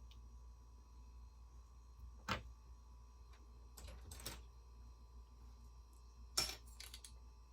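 Lego bricks being handled and pressed together: a handful of sharp plastic clicks and taps, the loudest about six seconds in, over a faint steady hum.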